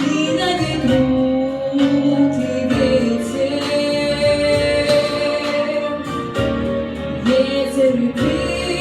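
Female voice singing a sustained melody over instrumental accompaniment in a jazz song.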